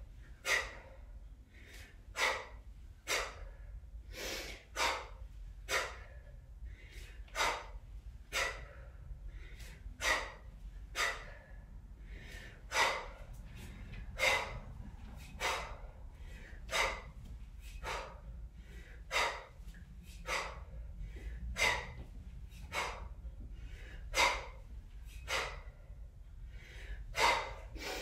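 A woman's short, forceful breaths in a steady rhythm, about three every two seconds, paced by kettlebell snatch and swing reps.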